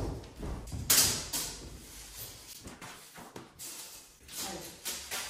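Footsteps and handling noises as someone moves about a bare room under renovation, with a sharp knock about a second in.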